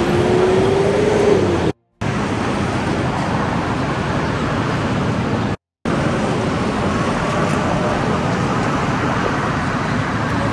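Steady road traffic noise from a busy street, cutting out to silence twice for a moment. A faint steady tone sounds through the first second or so.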